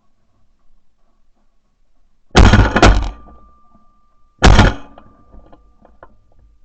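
Franchi Affinity Elite 3.5 semi-automatic 12-gauge shotgun firing: two loud shots about two seconds apart, the first followed about half a second later by a second sharp crack.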